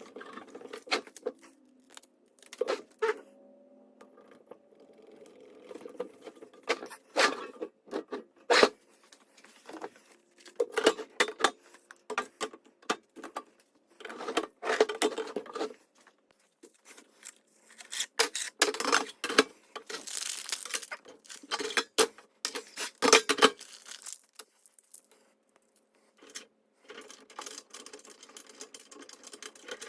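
Irregular clicks, taps and rustling scrapes of small hard parts being handled, over a faint steady hum.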